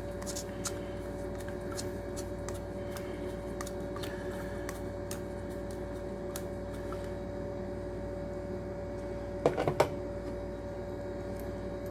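Small scattered clicks and light scrapes of a screwdriver working a rubber diaphragm out of a small plastic aquarium air pump, with a couple of louder knocks about nine and a half seconds in, over a steady hum.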